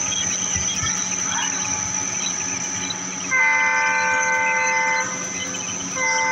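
Diesel locomotive's horn sounding: one long blast of about a second and a half a little past halfway, then a short blast starting near the end.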